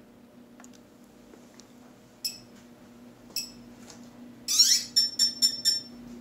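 Autel X-Star Premium drone sounding its power-up beeps: two short high beeps about a second apart, then a rising chirp and a quick run of about five beeps.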